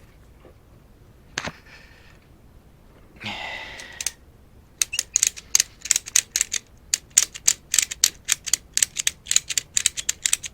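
Ratchet strap being cranked tight: a fast run of sharp clicks, about five a second, starting about halfway through. Before it come a single click and a brief rustle of the strap.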